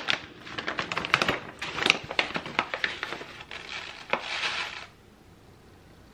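Plastic pouch of hemp seeds crinkling and rustling as it is handled and a scoop is dug into the seeds, a run of sharp irregular crackles that stops about five seconds in.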